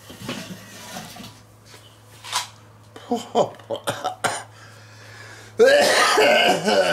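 Lid of a charcoal kettle grill lifted and hung on the kettle's side, with a few short metal clinks, then a loud cough and throat-clearing near the end.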